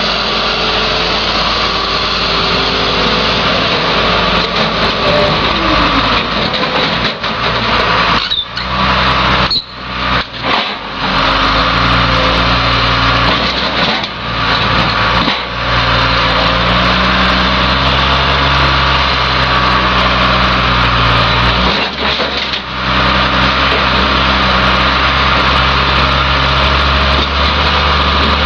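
Diesel engine of a John Deere 544J wheel loader running hard as it pushes cars into a car crusher, its pitch stepping up and down with the throttle. A steady hiss runs under it, and the sound briefly drops out a few times about eight to eleven seconds in.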